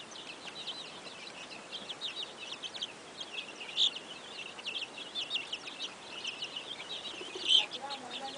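A flock of chickens crowded in a chicken house, peeping in a dense, continuous high-pitched chorus. Two louder calls stand out, about four seconds in and near the end.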